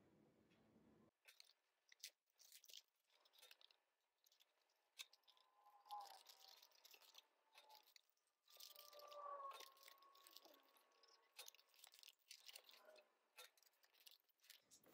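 Near silence, with faint scattered taps and rustles of card paper being handled and pressed together.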